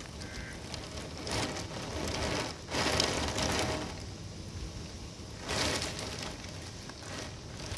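Heavy wind-driven rain in a severe thunderstorm, the downpour swelling in gusts: three surges, the loudest a little before the middle.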